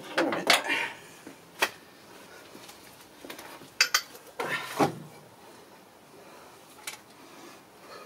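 Metal clinks and rattles of engine parts and hand tools being handled and set down. There is a clatter just after the start, sharp clicks about four seconds in, then a longer rattle, and a last small click near the end.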